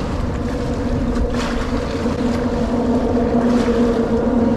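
A motorboat's engine droning steadily nearby, growing slightly louder, with wind rumbling on the microphone.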